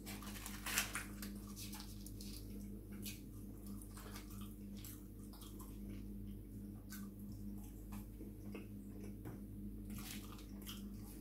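Faint close-up chewing and wet mouth clicks from eating soft chip-shop chips, with scattered small ticks, over a steady low hum.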